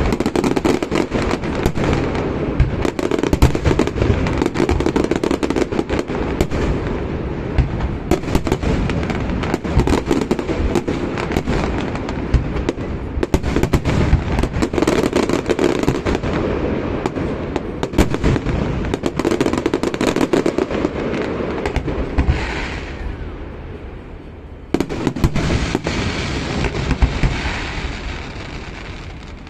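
Fireworks display: a dense, continuous barrage of bangs and crackling from shells bursting overhead. It thins out for a couple of seconds near the end, then a fresh salvo starts abruptly.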